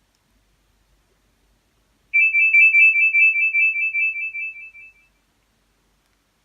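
Nokia 2760 mobile phone's loudspeaker playing a ringtone preview: a quick trilling ring on two high tones, starting about two seconds in and fading out over about three seconds.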